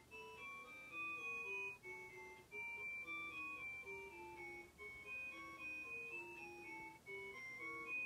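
Simple electronic melody from a thermal-camera MIDI sequencer: short synth notes, about four a second, stepping up and down in pitch. Each note stands for a temperature in the camera's 8x8 thermal image of a computer.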